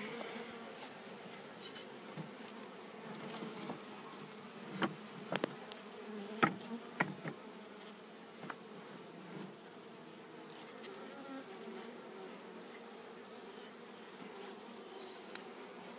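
Swarm of honeybees buzzing steadily around an open bee package and top bar hive, with a few sharp clicks and taps about five to seven seconds in.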